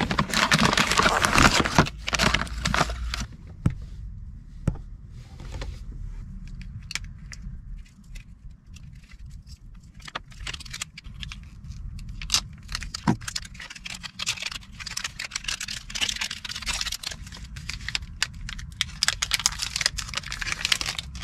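Crinkling and rustling of a glow stick's plastic and foil packet being handled, in dense stretches at the start and again in the second half, with scattered clicks between, over a steady low rumble.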